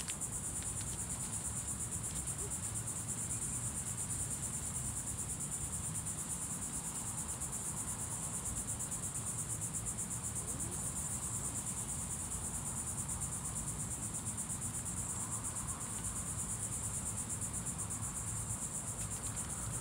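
Steady, high-pitched trilling chorus of insects, with a low rumble underneath.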